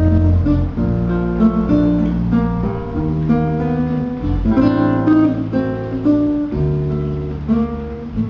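Instrumental passage of acoustic guitars, one a nylon-string classical guitar, plucking and strumming chords over sustained low bass notes. The singer is silent.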